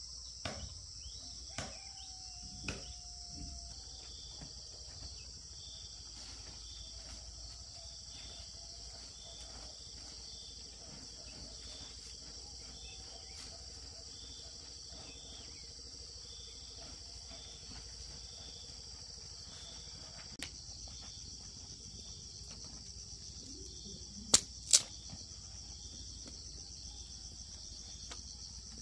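Steady high insect chorus of crickets, with a softer chirp repeating about once a second. A few sharp clicks break in, the loudest two close together near the end.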